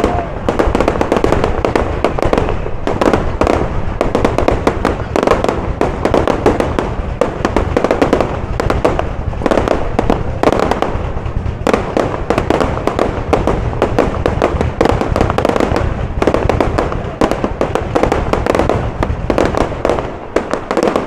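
Fireworks display going off in rapid, unbroken succession: dense bangs and crackles, thinning and dropping off near the end.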